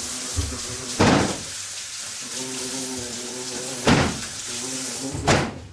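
A fly-like buzzing hum broken three times by loud thumps of a body bumping against window glass, like a fly hitting a windowpane, over a steady hiss of running tap water.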